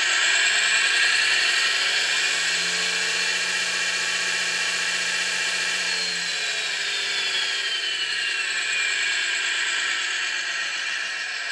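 Servonaut SM3 sound module playing a simulated diesel engine sound through the dumper model's built-in speaker, muffled by the body. It follows the throttle, rising in pitch over the first couple of seconds, holding, then falling away from about six seconds in, with the whine of the model's electric drive motor rising and falling along with it.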